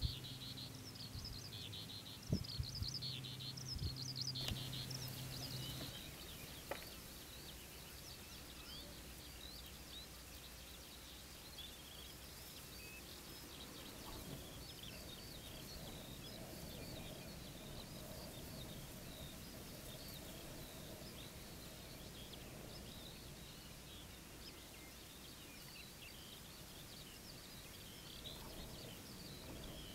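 Many small birds chirping faintly and continuously in the background. An insect buzzes steadily for the first six seconds, then stops.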